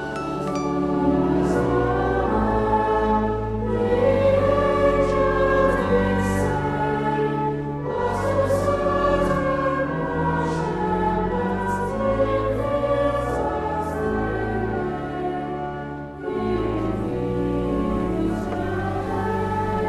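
Choral music: a choir singing long held notes in slow phrases.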